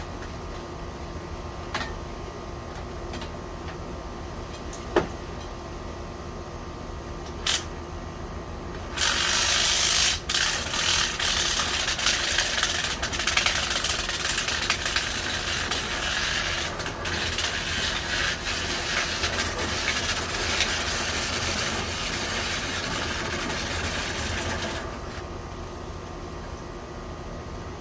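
A steady hum with a few sharp clicks, then about nine seconds in a loud, rough scraping and rattling starts and runs for about sixteen seconds before stopping abruptly: a dryer vent cleaning brush on kit rods worked through the vent duct, loosening built-up lint.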